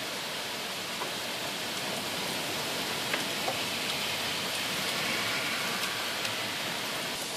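Heavy rain pouring steadily with a few scattered sharp ticks, as small hailstones begin to strike among the rain; it swells a little in the middle.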